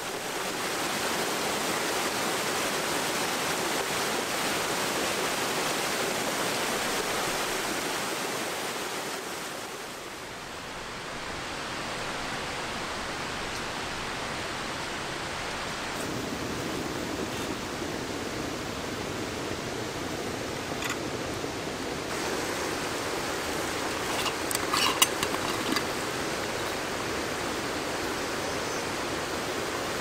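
Steady rush of a flowing stream, with a few light clinks and taps around two-thirds of the way through.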